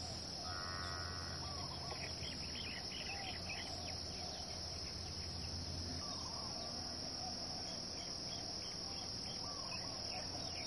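Insects trilling steadily at a high pitch, with short bird chirps now and then.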